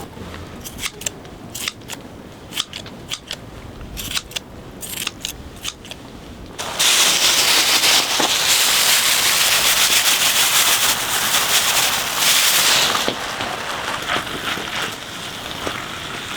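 Wood fire crackling with sharp, irregular pops. About seven seconds in, a loud steady hiss starts suddenly and cuts off about six seconds later, then the crackling goes on more quietly.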